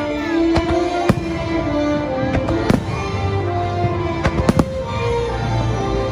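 Fireworks going off in a series of sharp bangs, several in quick succession a little past the middle, with music playing underneath.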